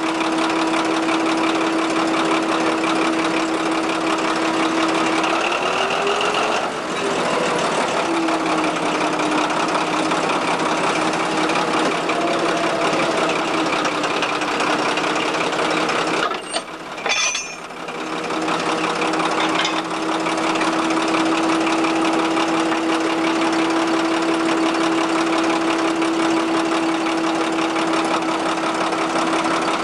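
Lxd2 narrow-gauge diesel locomotive idling close by: a steady engine drone with a held hum, its pitch rising briefly about six seconds in. A couple of short clicks sound about seventeen seconds in.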